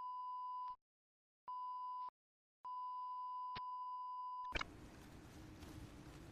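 Electronic beep tone at one steady pitch, sounded three times: two short beeps, then a longer one of about two seconds. It cuts off with a click about four and a half seconds in, leaving faint hiss with a low hum.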